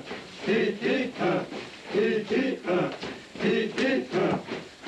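Group of Poyanawa men chanting a traditional dance song together in short, evenly repeated phrases.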